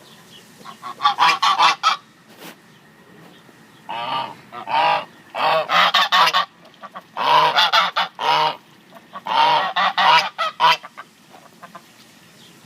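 Geese honking in repeated bouts of loud calls, about five bouts with short pauses between them.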